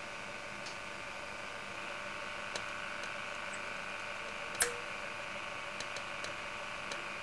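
Steady hiss and hum of the camcorder's own recording noise, with a few faint clicks and one sharper click about four and a half seconds in.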